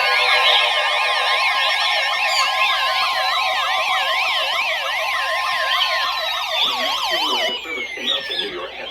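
Several electronic alert sirens sounding at once for a newly issued special marine warning: rapid up-and-down warbles layered over steady tones and slow falling glides, thinning out near the end.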